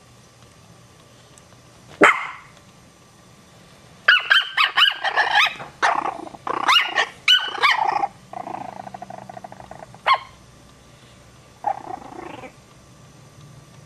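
Small dogs barking: one sharp bark, then a quick run of high yapping barks, a growl, and a couple more yips.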